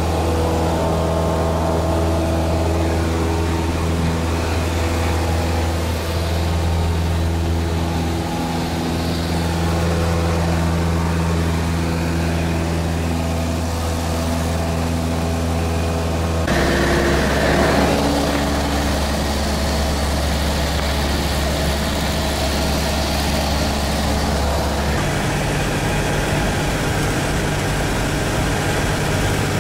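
Piston engine and propeller of a single-engine light aircraft droning steadily, heard inside the cabin. The engine note drops suddenly about halfway through and changes again near the end.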